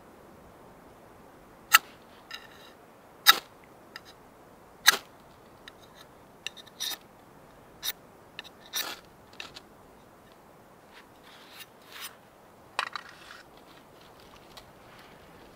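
Fire steel (ferro rod) struck with a steel striker to throw sparks onto tinder: about a dozen quick, sharp scrapes at uneven intervals, the loudest three in the first five seconds.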